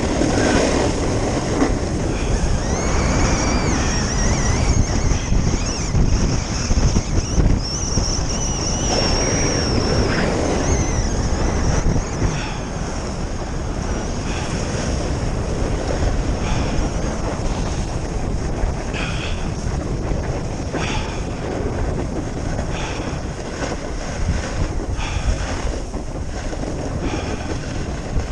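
Wind rushing over the microphone of a camera moving fast down a groomed ski run, mixed with the hiss and scrape of edges cutting the packed snow. A wavering high whistle rises and falls through the first twelve seconds or so. In the second half, short scrapes come with each turn.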